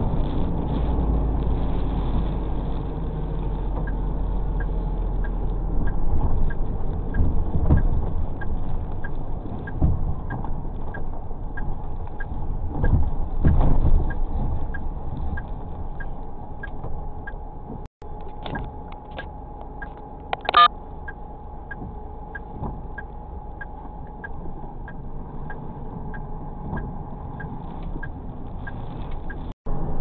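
Truck driving through floodwater, heard from the cab: a steady engine and road rumble with several swells of splashing from the tyres. A light, regular tick sounds about once a second, and a short high beep comes about two-thirds of the way through.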